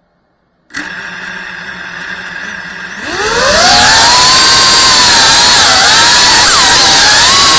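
FPV quadcopter's brushless motors starting just under a second in and idling with a steady hum. About three seconds in they spin up into a loud, rising whine that then wavers up and down with throttle as the quad lifts off, heard from the camera on board.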